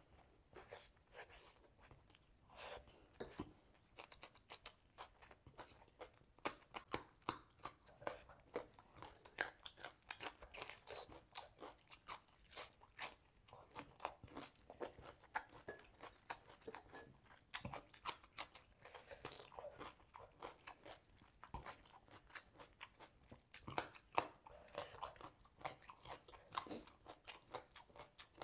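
A person eating, with irregular crunches and wet chewing and biting sounds close to the microphone, going on throughout.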